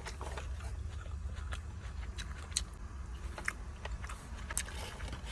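A person chewing a mouthful of lettuce-wrapped Beyond Wraptor burger: irregular small crunches and mouth clicks over a low steady hum.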